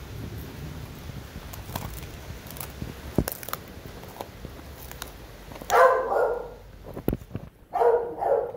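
A dog barks twice, each bark lasting about half a second, about two seconds apart in the second half. A few scattered sharp knocks and clicks come before and between the barks.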